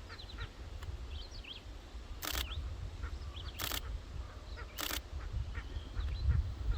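Nikon D500 DSLR shutter firing three times, about a second and a quarter apart. Birds call faintly throughout, over a low rumble of wind.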